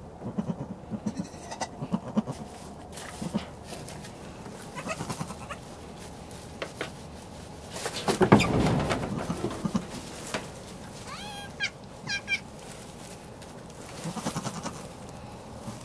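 Newborn Nigerian Dwarf goat kid bleating in a few short, high, rising cries near the end, with soft low grunts and the rustle of a towel rubbing it dry. There is a louder, longer stretch of rustling and handling noise in the middle.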